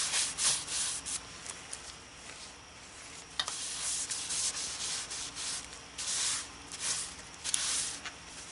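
Rubbing against a redbud bowl spinning on a wood lathe, a hiss that comes in uneven strokes with several louder swells.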